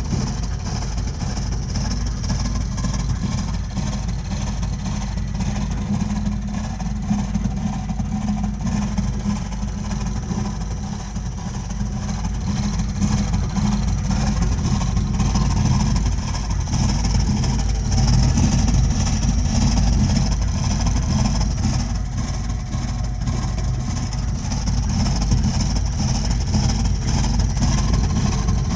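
Burnham Alpine gas-fired condensing boiler running with a loud, steady, low-pitched drone and a fainter hiss above it, swelling slightly in level now and then. This is the abnormal loud noise that its owner reports as a continuing problem.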